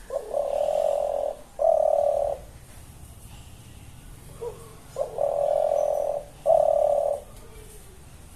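Pigeon cooing: two calls about five seconds apart, each a short lead-in note followed by two long, low, steady coos.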